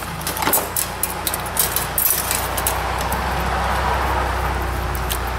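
Light clicks and clinks of hand tools and a metal brake line being handled on a steel workbench, over the steady low hum of an engine running nearby; the hum grows louder about two seconds in.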